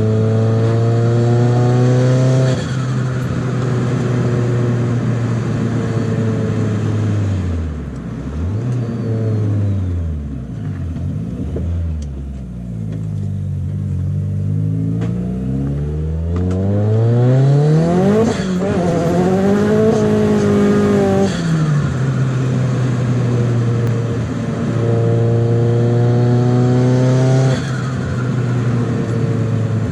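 Turbocharged SR20DET four-cylinder of a Nissan 200SX S14a, fitted with a Borg Warner EFR7163 turbo, pulling through the gears. The engine note climbs and drops sharply at each shift, and the turbo flutters as the throttle is lifted. In the middle the revs fall low and waver, then climb steeply again twice.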